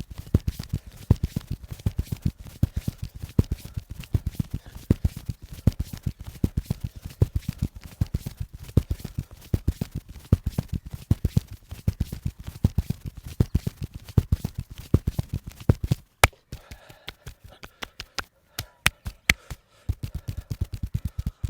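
Massage percussion: hands beating rapidly and evenly on the body, about five or six thudding strikes a second. About sixteen seconds in it gives way to a few seconds of sparser, sharper slaps, then the fast beating resumes near the end.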